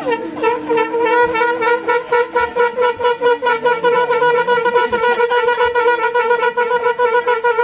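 Conch shells (shankha) blown together by Hindu priests during aarti, sounding one long, loud, steady note that throbs quickly.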